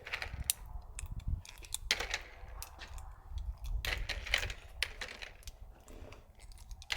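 9mm cartridges being pushed one by one into a Springfield Hellcat Pro magazine: an irregular run of small metallic clicks.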